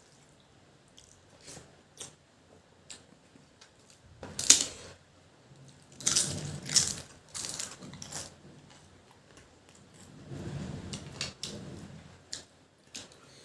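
Close-up eating sounds: chewing with small mouth clicks. A sharp, loud noisy burst comes about four and a half seconds in, and a run of loud bursts between six and eight seconds in.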